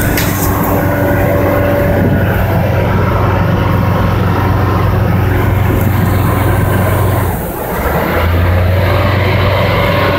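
Car ferry's diesel engines and propellers droning steadily with a low hum. The drone dips briefly about seven and a half seconds in, then comes back a little lower in pitch as the power changes.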